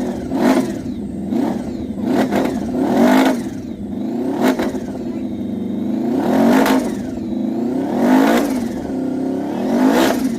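Racing motorcycle engine running loud and blipped on the throttle again and again, the pitch sweeping up and falling back every second or two.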